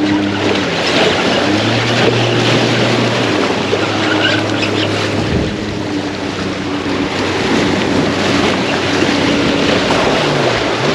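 Wind on the microphone over breaking waves, with the steady low hum of a boat engine running underneath.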